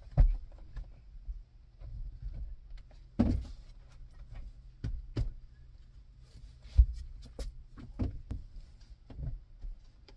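Irregular knocks and thumps, a few loud ones among lighter clicks, over a low rumble.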